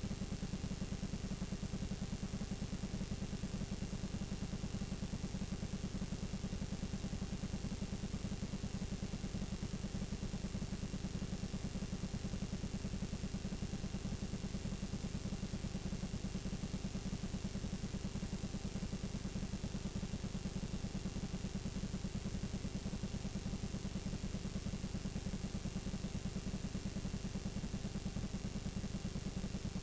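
Playback noise from a blank stretch of videotape: a steady low buzz with hiss and a faint, steady high-pitched whine.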